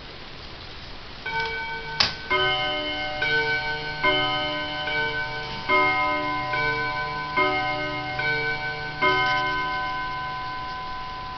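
Heco Art Deco tambour mantel clock's bim-bam chime striking: about ten ringing strokes alternating between two notes, low and high, roughly five bim-bam pairs. There is a sharp click about two seconds in, and the last stroke rings on and fades away.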